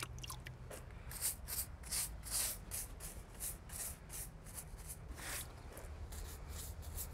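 Wet masonry brush scrubbing across brick and mortar joints in quick repeated strokes, about three a second, with a pause near the end. The bristles are wetting the brick and picking up leftover dust so the new mortar bonds better.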